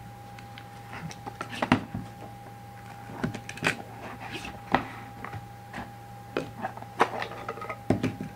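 Hands opening a box and handling a baseball in a clear plastic cube holder: scattered knocks, clicks and scrapes of the packaging and the plastic case, over a faint steady hum and thin tone.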